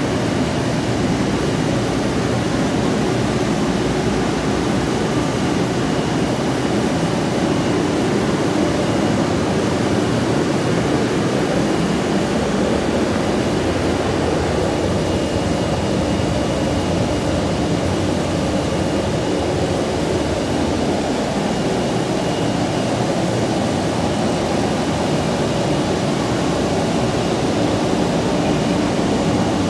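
Steady industrial drone of a factory floor: an even mechanical rush with a faint high whine over it, unchanging throughout.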